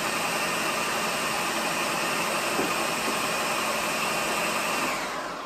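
Ninja food processor motor running steadily on low, mixing a cookie-dough base while melted butter is drizzled in through the lid. It winds down in the last half second.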